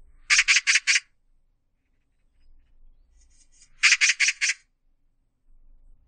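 Oriental magpie giving its harsh chattering call: a quick run of four rasping notes, then after about three seconds another run of four, with fainter calls just before the second run.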